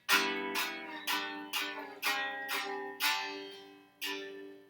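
A string instrument strummed in chords, about two strums a second, each chord ringing and fading, with the last one dying away near the end: instrumental accompaniment filling the gap left for listeners to sing the line back.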